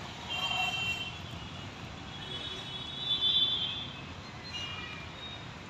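Street traffic running steadily, with several high-pitched tones of about a second each cutting through it, the loudest in the middle.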